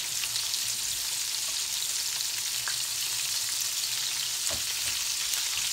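Breaded chicken gizzards frying in hot grease in a skillet: a steady sizzle, with one soft knock about four and a half seconds in.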